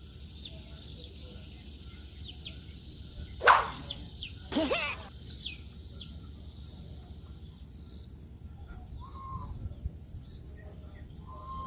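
Outdoor ambience: small birds chirping over and over in short falling notes above a steady low rumble. A louder sound stands out about three and a half seconds in, and a wavering pitched call follows about a second later.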